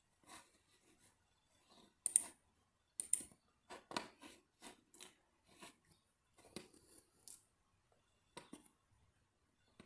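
Faint, irregular clicks and small scrapes from working a computer mouse and handling things at a desk, about a dozen short sounds spaced unevenly.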